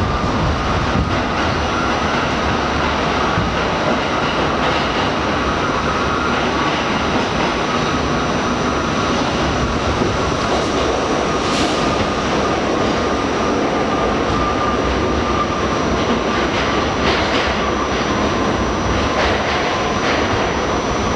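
R68 subway car running at speed, heard from inside the car: a steady rumble of wheels on the track with a continuous high whine over it, and sharp clicks here and there as the wheels pass over rail joints.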